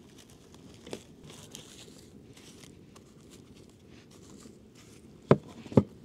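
Hands-on food preparation: light crinkling and handling noises, a small knock about a second in, then two sharp knocks about half a second apart near the end.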